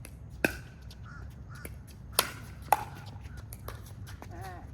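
Pickleball paddles striking the ball during a rally: a sharp pop about half a second in, then two more close together a little past two seconds, with fainter ticks between.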